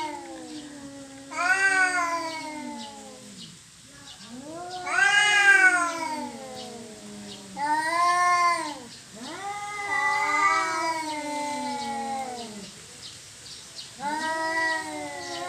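Cats caterwauling in a territorial standoff: a string of long, wavering yowls, each rising and then falling in pitch, following one another every two to three seconds.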